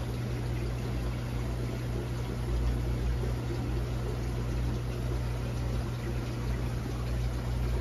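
Aquarium water circulation: a steady low pump hum under an even rush of moving water.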